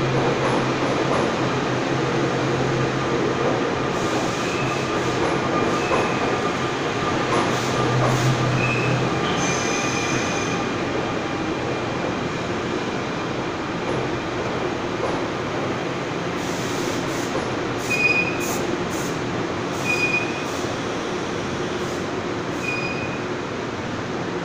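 NJ Transit stainless-steel commuter train rolling along an underground platform as it slows to a stop: a steady rail rumble, with a low hum that fades out about a third of the way in, and short high wheel squeals every few seconds.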